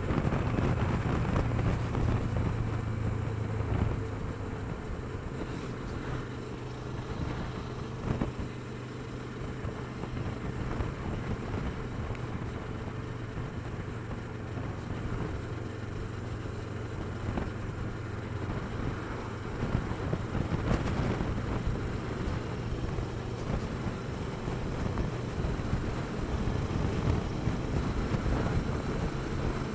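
Kawasaki Versys 650's parallel-twin engine running at a steady cruise, heard from on the bike, with wind rushing over the microphone.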